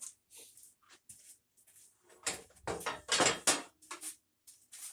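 Handling noise of a saw being set down and slid into place against a clamp-on straight-edge guide on a plywood panel: irregular knocks and scrapes, loudest a little over two seconds in. No saw motor is running.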